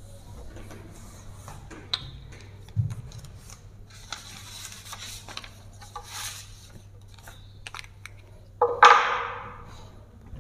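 Faint rubbing and scattered light knocks of a whiteboard being wiped with a duster, over a steady low hum. About nine seconds in comes a short, loud rush of noise that fades quickly.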